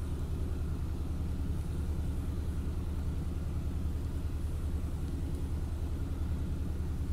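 A steady low hum of background noise, even in level and with no distinct events.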